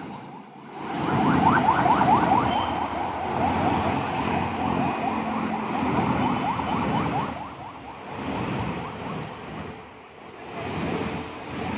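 Busy city-street traffic: vehicles passing close by with a low rumble, loudest from about a second in until about seven seconds, with a fast warbling, repeatedly rising tone over it. Smaller swells follow as more traffic goes by.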